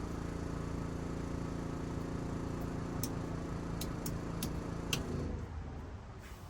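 Jeep Cherokee XJ engine idling steadily, dying away about five seconds in, with several sharp clicks just before.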